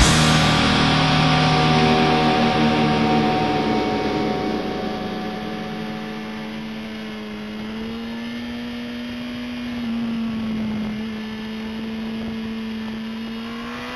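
2004 Yamaha R1's inline-four engine heard onboard, its revs falling gradually over the first several seconds as the bike rolls off the throttle, then holding at a low, even note.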